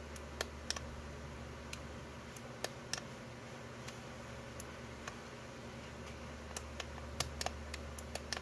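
Irregular sharp plastic clicks, about a dozen, from the trigger and forward/reverse switch of an INGCO ED4508 electric drill being worked by hand while the motor stays off.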